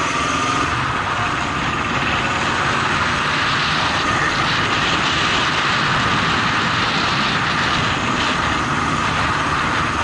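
Honda CB750 motorcycle's inline-four engine running steadily while riding, mixed with a constant rush of wind and road noise on the bike-mounted microphone.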